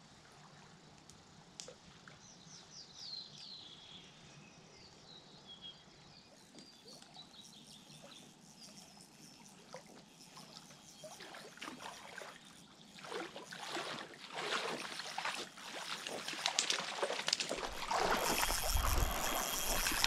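A hooked trout splashing and thrashing in shallow water as it is played in, with wading splashes; the splashing builds steadily and is loudest near the end. A few faint falling bird notes come about three seconds in.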